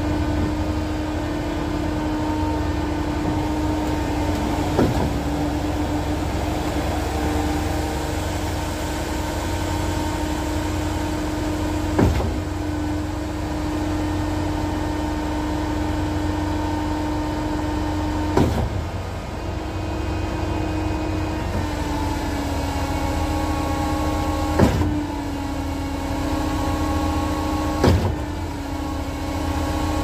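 Concrete line pump and truck mixer running with a steady drone, with five short sharp knocks spaced three to seven seconds apart.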